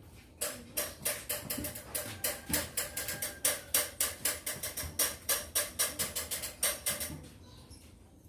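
Rapid sharp taps of a hard utensil, about five a second, as crushed antibiotic powder is tapped out and sprinkled into a pigeon's mouth; the tapping stops about seven seconds in.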